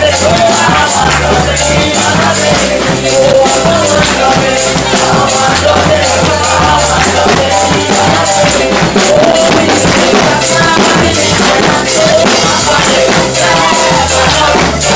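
Live church praise music: a woman sings lead into a microphone over a drum kit with cymbals, a steady bass line and shaker-like percussion.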